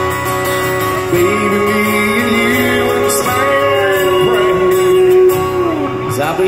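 Live country band music: guitars playing held notes with a sliding lead line over a steady accompaniment.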